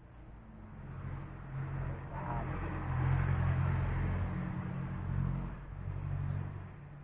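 A passing motor engine: a low, steady hum that swells over the first few seconds, is loudest in the middle and fades toward the end.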